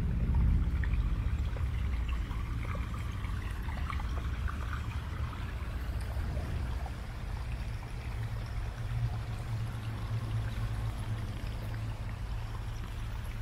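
Small stream trickling and splashing over rocks, with a steady low rumble underneath.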